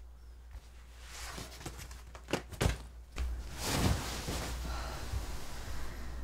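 Two sharp thuds about two and a half seconds in, then a person flopping down onto a bed with a rustle of bedding a little later, over a low steady hum.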